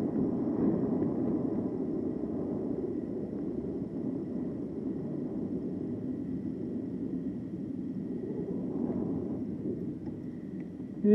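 Steady rush of wind and tyre noise from riding an e-bike along a paved street, with the wind buffeting the camera's microphone.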